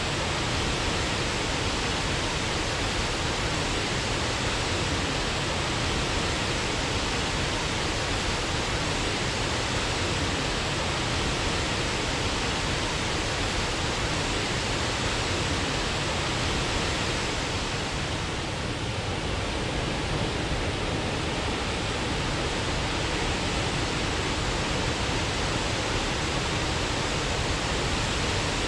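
Waterfall: a steady, dense rush of falling and splashing water, easing slightly for a few seconds past the middle.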